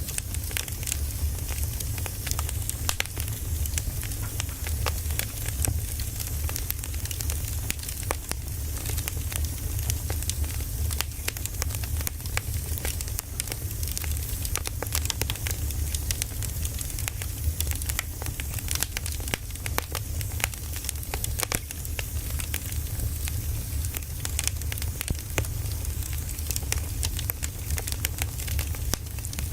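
Firewood burning, crackling with frequent, irregular sharp pops over a steady low rumble.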